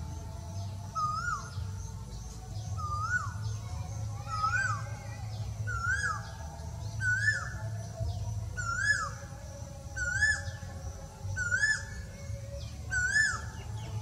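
Male Asian koel calling a repeated series of rising 'ko-el' notes, about one every second and a half, each note climbing then dropping sharply, the series edging higher in pitch as it goes on.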